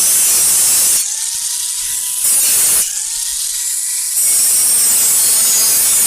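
A power tool cutting with a loud hiss. Twice the cut eases, and a motor whine climbs in pitch and levels off before the hiss returns.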